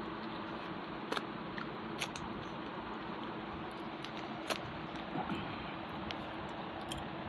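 Eating by hand from a steel plate: a few scattered small clicks and scrapes of fingers on the metal plate and of chewing, over a steady background hiss with a faint low hum.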